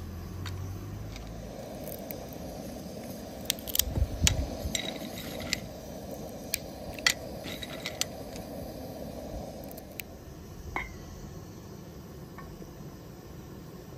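Hazelnuts in the shell being cracked one at a time in a hand-held nutcracker: a run of sharp cracks and clicks, with shell and nuts clinking onto a metal plate. The cracks come mostly in the middle stretch.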